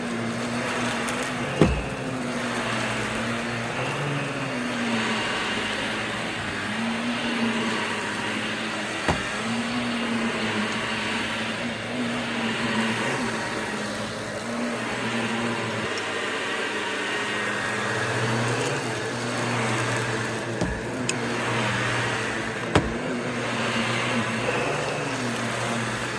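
Vacuum cleaner running, its motor hum wavering up and down in pitch, with a few short sharp knocks.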